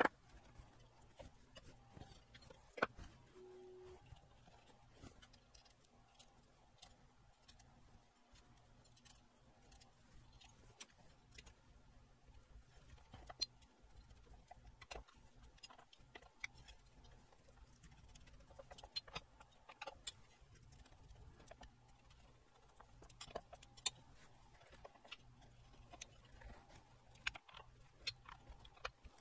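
Faint, scattered small clicks and metallic taps as TO-3 power transistors are screwed onto a power supply's heatsink with a screwdriver.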